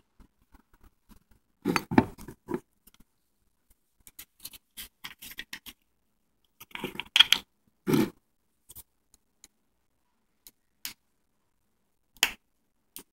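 Kitchen handling sounds: irregular clicks, clinks and knocks as containers and utensils are picked up and set down on a counter, loudest about two seconds in and again around seven to eight seconds in.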